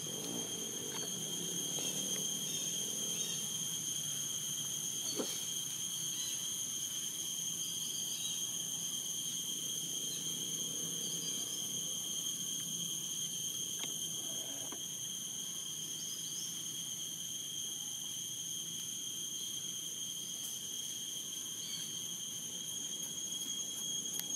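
Steady, high-pitched insect drone, a constant whine with overtones that does not let up, over a low background rumble.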